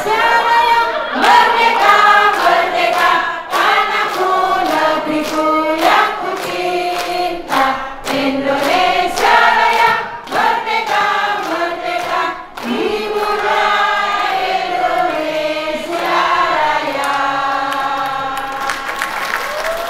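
A crowd of elderly people singing a song together, with hands clapping along; the singing ends near the end.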